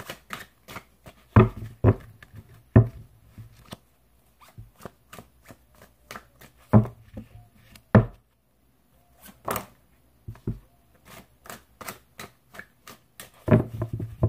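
A deck of cards being shuffled by hand: a quick run of soft card clicks and flicks, broken by several louder thumps and two brief pauses.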